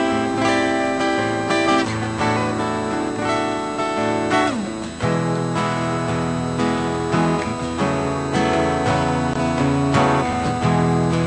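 Steel-string acoustic guitar playing the instrumental introduction of a song, with lower bass notes coming in about halfway through.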